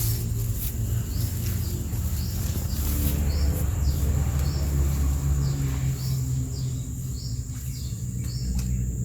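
Outdoor pond-side ambience: a steady high insect drone with short chirps repeating about once a second, over a continuous low rumble that is the loudest part.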